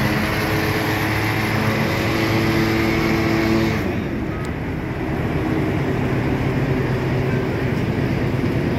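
Engine of a river vehicle ferry running with a steady drone over a constant hiss of wind and water. About four seconds in, the engine note drops away and the hiss carries on.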